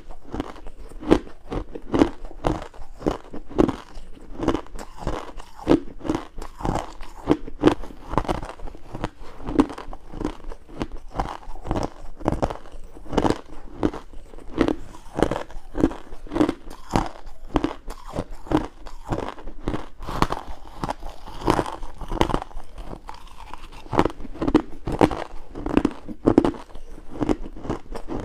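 Close-up crunching of ice being bitten and chewed, a steady run of sharp cracks, one or two a second.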